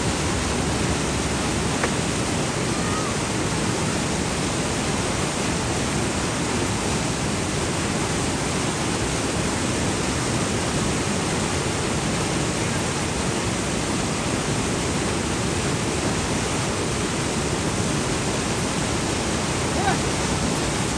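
Steady rushing of turbulent whitewater pouring out below a concrete dam outlet.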